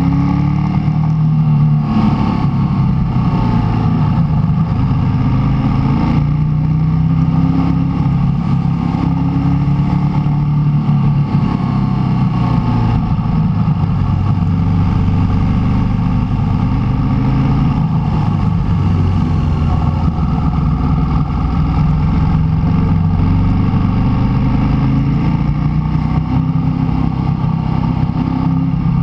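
Motorcycle engine heard from on board the moving bike, its pitch rising and falling again and again as it accelerates and slows through the bends.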